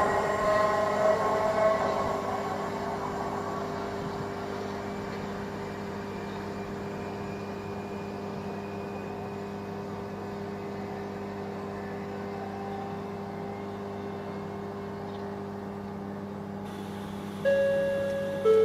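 Class 444 Desiro electric multiple unit pulling away and receding, its motor whine fading over the first few seconds and leaving a steady low hum. Near the end a sudden loud two-note tone sounds, high then lower.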